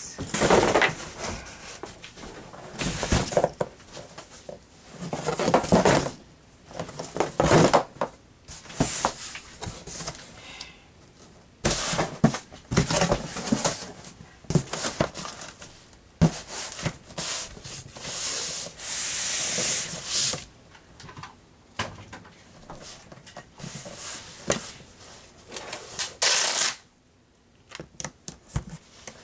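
Irregular rustling, scraping and knocking of a cardboard shipping box being handled and closed, with packing tape being run off a tape gun onto the box near the end.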